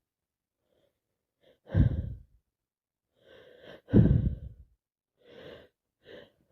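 A woman with a heavy cold breathing hard: short catching inhales and two loud, breathy exhales about two seconds apart, the build-up of a sneeze.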